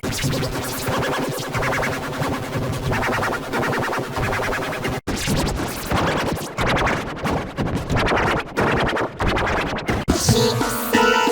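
Children's nursery-rhyme music heavily mangled by editing effects into a harsh, scratchy, rapidly stuttering wash with no clear tune or words. It cuts out for an instant about five seconds in and again near ten seconds.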